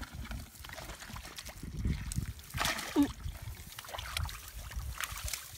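Muddy shallow water splashing and sloshing as a hand tool digs and hands grope through the mud, in irregular strokes with a louder splash about three seconds in.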